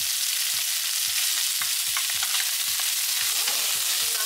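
Chicken thighs sizzling as they brown in a hot frying pan, a steady hiss, while being stirred, with soft knocks against the pan about twice a second.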